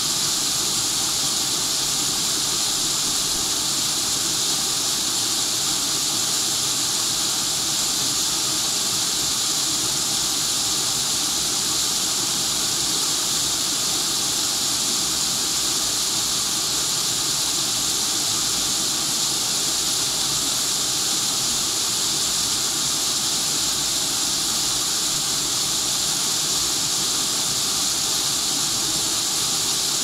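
Small creek waterfall spilling over rocks into a pool: a steady, even rush of water with a bright hiss.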